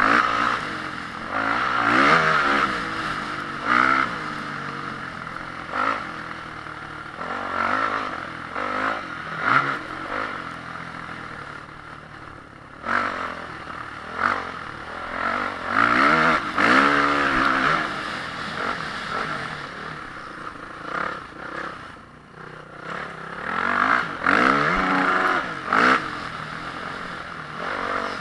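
Honda CRF450R motocross bike's single-cylinder four-stroke engine racing round the track, the throttle opening and closing again and again. The engine note climbs in pitch on each surge and drops off between them, easing briefly about twelve seconds in and again about twenty-two seconds in.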